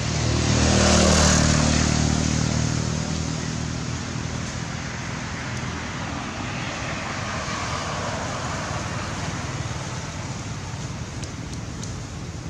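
A motor vehicle's engine passing: a low hum that swells to its loudest about a second in, then fades into a steady road hiss.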